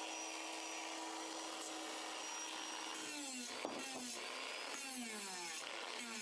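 Hand-held rotary tool with a sanding drum sanding a cedar hatchet handle. Its whine holds steady for about three seconds, then dips in pitch again and again as the drum is pressed into the wood.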